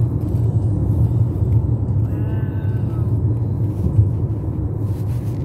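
Steady low rumble of a car's road and engine noise heard inside the cabin while driving, with a brief high-pitched sound about two seconds in.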